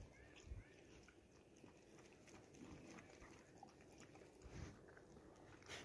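Faint, irregular lapping clicks of a dog drinking from a puddle, with a few soft thumps.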